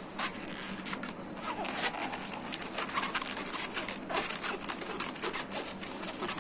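Latex modelling balloon being squeezed and twisted by hand into a bubble, with rubbing and short squeaks of the stretched rubber.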